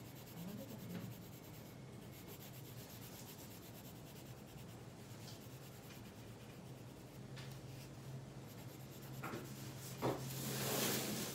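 Colored pencil scratching back and forth on paper while shading in a drawing, growing louder about ten seconds in.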